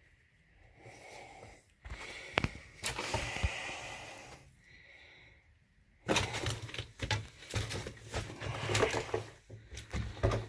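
A man's heavy, wheezy breathing with scuffs, knocks and rustling as he moves stooped through a cramped underground tunnel; the knocking and rustling grow busier and louder about six seconds in.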